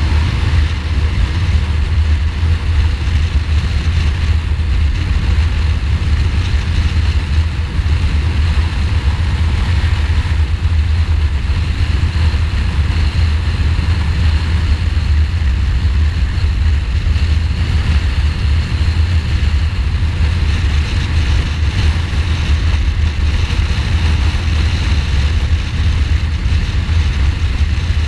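A 2015 Ducati Multistrada's 1200 cc V-twin engine running steadily at highway cruising speed. It sits under a steady low rush of wind on the microphone.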